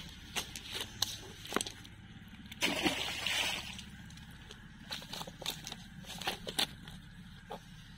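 Wet slaps and rustling of freshly caught fish and a cast net being handled on grass, with scattered sharp clicks and a longer splashy burst about three seconds in.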